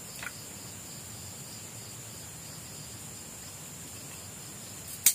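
Crickets trilling steadily in the background, with a faint click just after the start and a single sharp crack near the end as cooked shellfish shell is broken apart by hand.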